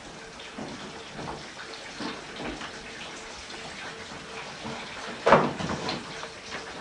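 Steady hiss with a faint hum, broken about five seconds in by a short, louder noise and a few smaller ones after it.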